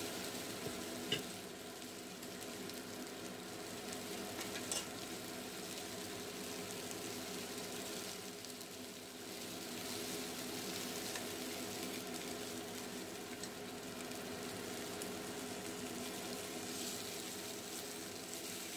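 Chicken drumettes sizzling steadily in hot oil in a nonstick frying pan as they are turned with chopsticks, with a couple of light chopstick clicks against the pan about a second in and near five seconds. A steady low hum runs underneath.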